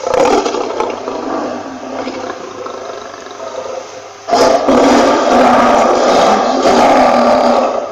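Lion roaring: a loud roar at the start that fades over a few seconds, then a second, louder roar held for about three and a half seconds that cuts off suddenly.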